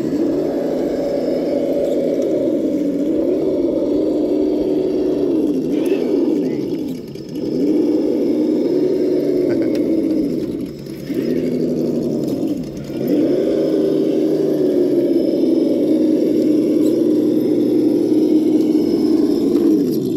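Traxxas TRX-4 High Trail RC rock crawler's electric motor and gear drive whining as it crawls over rocks, the pitch rising and falling with the throttle. It eases off briefly three times, about seven, eleven and twelve and a half seconds in.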